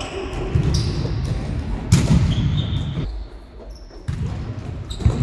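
Indoor futsal play: a ball struck hard with a sharp thud about two seconds in and again near the end, among short shoe squeaks and the thud of running feet on the sports-hall floor.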